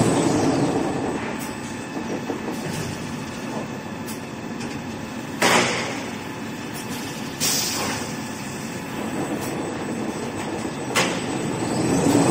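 XY-TQ-C colour-gluing lamination toilet paper and kitchen towel rewinding machine running with a steady mechanical rush, broken by three short, sharp bursts about five, seven and a half and eleven seconds in.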